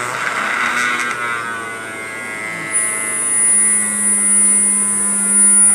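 Homemade 12 V DC motor drill running with its bit boring into MDF board. Its pitch sinks slightly over the first couple of seconds, then a high thin whine comes in about three seconds in and the motor runs on steadily.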